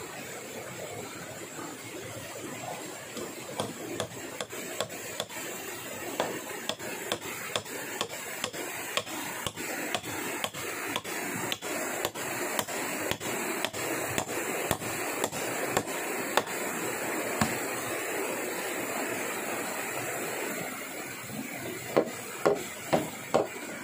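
Sharp, evenly spaced chopping strikes of a blade on wood, about two a second, over a steady rushing background. They stop for several seconds, then four louder strikes come near the end.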